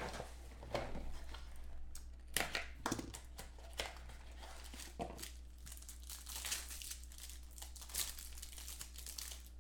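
Trading-card packs handled by hand, their plastic wrappers crinkled and torn open, with scattered sharp taps of packs and cards on the table.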